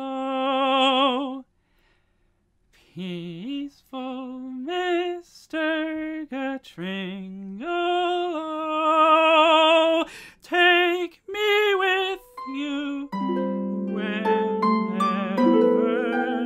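A solo tenor voice singing a slow melody with vibrato, unaccompanied, with a pause of about a second and a half near the start. Near the end a medieval harp comes in with plucked notes that ring on.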